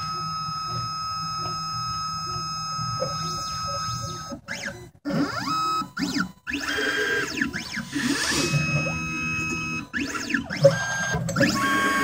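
Stepper motors of a Laser Key Products 3D Xtreme computerised key machine driving the carriage and tracer through the automatic tracer calibration on jaw 1. Steady whining tones sweep up and down in pitch as the axes speed up and slow down, with short pauses between moves.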